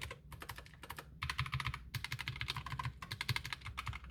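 Keys of a Redragon K621 low-profile mechanical keyboard being pressed in a rapid, irregular clatter of clicks, with a couple of brief pauses.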